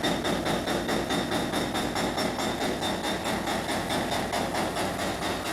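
Heavy demolition excavator working, its diesel engine running under load with a rapid, even pulsing of about five beats a second.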